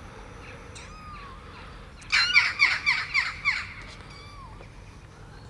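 Tiny kitten mewing: a quick run of short, high-pitched mews about two seconds in, lasting about a second and a half.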